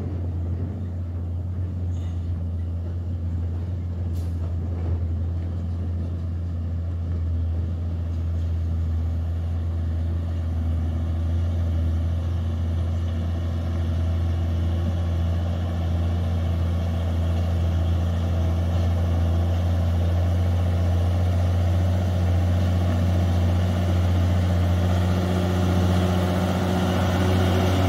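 Hino tanker truck's diesel engine pulling up a dirt incline: a steady, deep drone held at one pitch that grows louder as the truck approaches.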